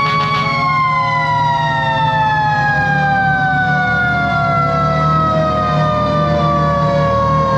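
A fire engine's siren holding its top pitch, then winding down in a long, slow falling wail. The truck's Detroit Diesel 8V71 runs steadily underneath.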